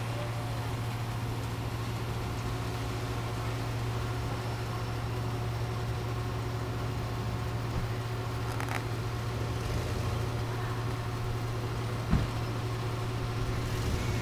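Steady low engine drone with a constant hum, unchanging throughout, like engines running at idle. A brief click about two-thirds of the way through and a short thump near the end.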